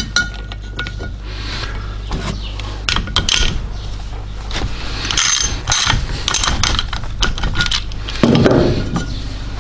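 Steel hand tools and parts clinking and knocking as a stud extractor and ratchet are worked on an A-Series cylinder head stud: irregular sharp taps with short metallic rings, and a quick rattle near the end.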